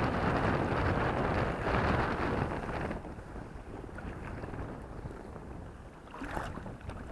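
Wind buffeting an outdoor microphone on a kayak, heavy for the first three seconds, then easing, with a brief gust near the end.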